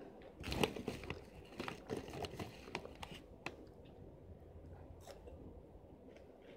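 Close-up crunching and chewing of Chester's Flamin' Hot Fries, a crisp corn-and-potato snack: a dense run of crunches in the first three seconds or so, then sparser, quieter chewing.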